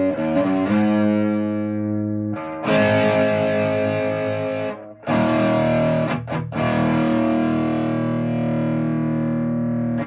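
Electric guitar chords strummed and left to ring through a modified Sunn 200S tube amp pushed into overdrive, with the cathode follower compressing the sound. The overdrive has a swirly, phasey quality, which the player takes for mild blocking distortion.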